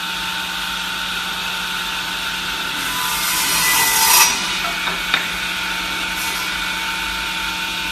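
MJX243 double-end wood cutting saw running with a steady whine from its spinning blades, cutting through a piece of wood about three seconds in; the cut builds and ends sharply just after four seconds, followed by a short knock about a second later.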